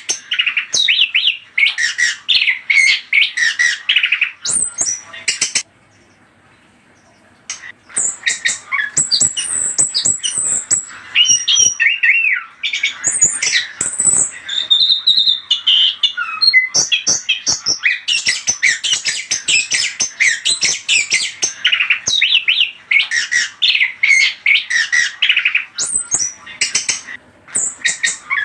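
Chestnut-capped thrush (anis kembang) singing a fast, varied song of rapid high chirps and whistled notes, with a pause of about two seconds some six seconds in and a brief break near the end.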